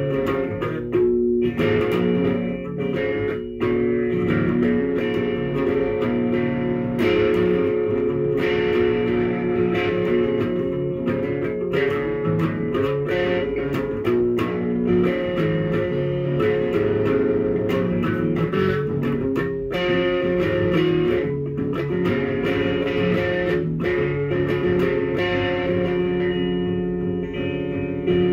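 Electric guitar played solo, single notes and chords picked and left to ring.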